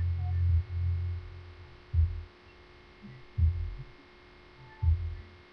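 A few low, muffled thumps, about one every second and a half, over a faint steady electrical hum.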